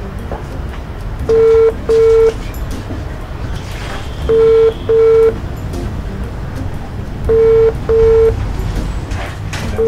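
Mobile phone ringback tone of an outgoing call: steady double beeps, ring-ring, repeating about every three seconds, three pairs and the start of a fourth near the end.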